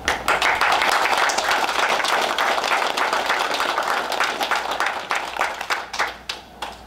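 Small audience applauding, many hands clapping quickly and evenly, then thinning out to a few last separate claps near the end.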